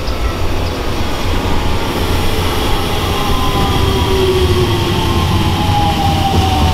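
Aichi Loop Railway electric train running, a steady low rumble with the motor's whine falling slowly in pitch as the train slows.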